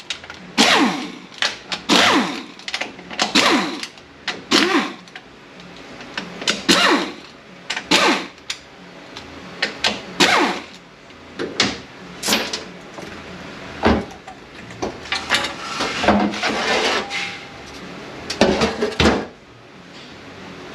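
Irregular metallic knocks and clatter of hand tools and bolts while the 10 mm oil-pan bolts are taken off a GM 8L90 automatic transmission, some knocks ringing briefly.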